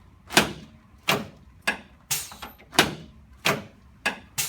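A run of about eight sharp knocks, roughly one every two-thirds of a second, from a chiropractic adjustment of a patient lying face down on the treatment table.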